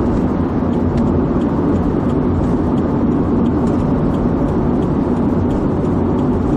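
Steady vehicle running noise: a constant engine drone over a low rumble, with no change in pitch or level.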